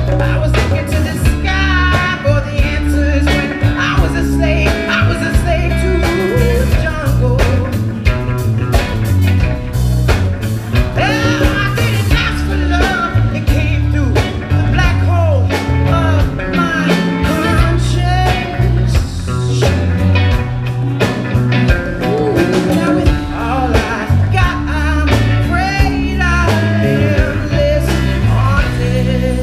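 Live blues-rock band playing loudly through a bar's PA: electric guitar, bass guitar and drums, with a heavy low end and bending guitar lines.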